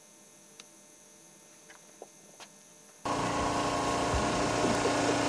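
A few faint clicks over quiet background, then about three seconds in a sudden jump to a loud, steady engine drone with a constant hum.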